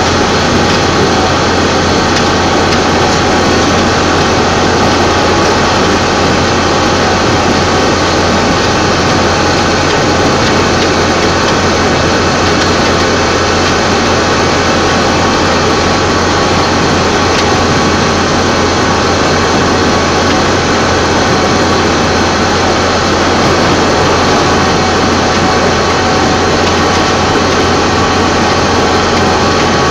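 A large engine running steadily at a constant speed, with a strong low hum and no change in pitch or level.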